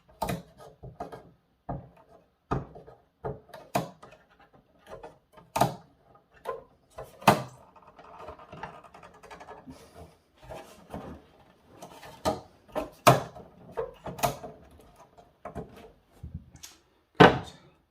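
Plastic parts of a Super7 Snake Mountain toy playset being handled: irregular clicks and knocks, with a stretch of rustling near the middle, as the trap door mechanism held shut by sellotape is worked at.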